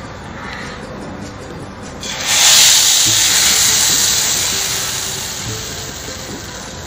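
Hot ghee with cumin seeds (a tadka) poured into simmering moong dal: a loud sizzle starts about two seconds in and slowly fades over the next four seconds.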